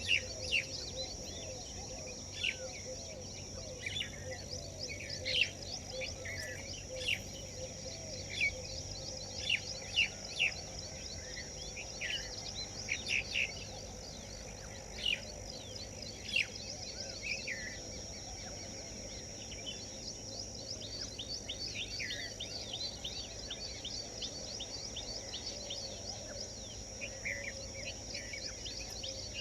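Many short, sharp bird chirps scattered over a steady high insect drone. The chirps come thick in the first half and thin out later. No long, loud peacock call stands out.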